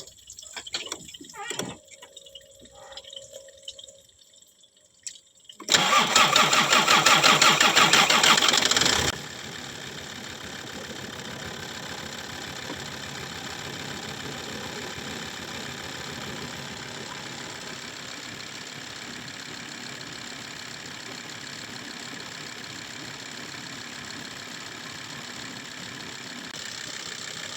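Land Rover Td5 five-cylinder turbodiesel engine cranking loudly on the starter for about three seconds, then catching and settling into a steady idle. A few faint clicks and knocks come before it cranks.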